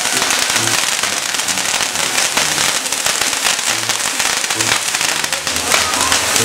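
Castillo firework tower burning: its spinning wheels and fountains of sparks give a steady, dense hissing crackle of countless small pops.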